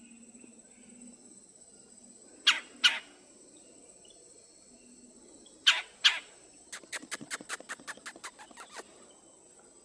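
A steady high-pitched insect drone, over which come two pairs of sharp calls and then a quick run of about fifteen clicks.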